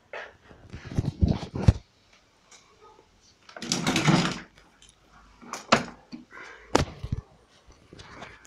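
Plastic knocks, clatters and a scrape from a Riwall Pro RS 250 electric pressure washer being handled, tipped over and laid on its side on a concrete floor. A cluster of knocks comes about a second in, a longer scraping stretch around four seconds, and a few sharp clicks after that.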